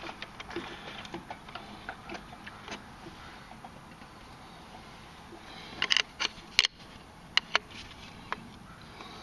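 Small metallic clicks and taps as a snowmobile's starter pinion gear and its retaining collar are worked by hand on the starter shaft, with a quick cluster of sharper clicks about six seconds in and a few single clicks after it.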